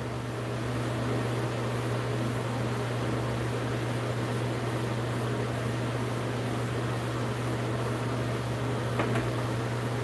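Steady low hum with an even hiss from a running fan, unchanging throughout; a faint tick about nine seconds in.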